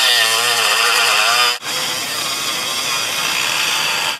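Dremel rotary tool running at high speed and grinding into a steel snap ring in a trailer wheel hub, cutting a notch so the broken ring can be pried out. Its whine wavers in pitch as the bit loads up, then about a second and a half in it turns to a harsher, noisier grinding.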